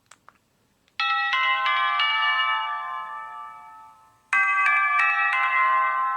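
Sony Ericsson K320i mobile phone playing a polyphonic ringtone through its speaker: four quick chime notes stack up about a second in and ring out, fading, then the same phrase repeats a little over three seconds later. Two faint clicks come just before it starts.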